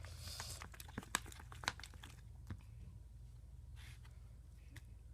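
Slime being worked, with sticky clicks and crackles, thickest in the first two seconds and then a few scattered ones.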